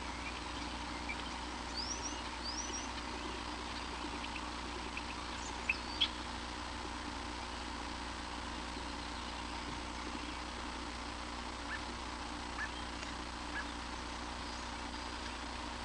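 Steady background hum and hiss with a few short, high rising bird chirps in the first few seconds, two sharp clicks about six seconds in, and a few fainter ticks later.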